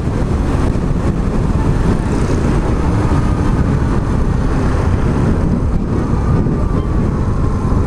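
Suzuki Burgman Street 125 scooter's single-cylinder engine running flat out at its top speed of about 95 km/h, heavy wind rush on the microphone covering it, with a faint whine above. Steady throughout.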